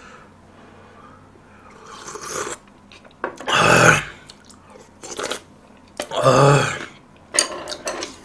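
Slurping hot pork-bone stew broth from a spoon, then two loud throaty vocal sounds, each under a second. Wet mouth clicks from chewing and lip-smacking come near the end.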